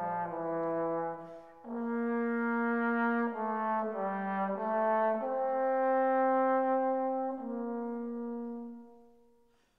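Background music: a slow melody of long held notes that fades out near the end.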